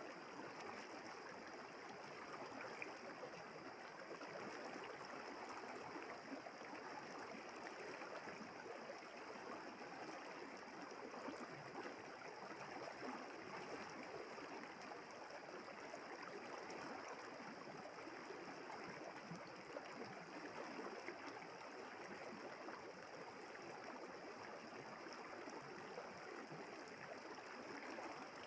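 A river flowing, a quiet, steady, unbroken water noise.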